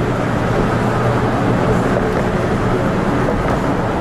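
Steady road noise inside a moving car: tyres on the pavement with a low, even engine hum.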